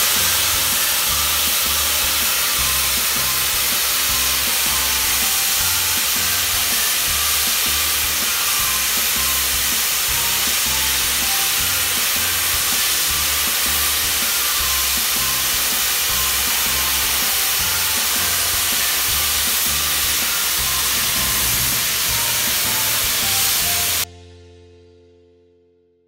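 Steam locomotive Frederick North letting off a loud, steady hiss of steam, over background music with a repeating bass line. The hiss cuts off suddenly about 24 seconds in, and the music's last notes fade out.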